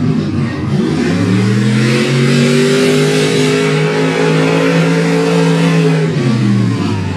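Lifted square-body pickup mud truck's engine revving hard at full throttle as it charges through the mud pit. The pitch climbs about a second in, holds high for several seconds, then falls away near the end.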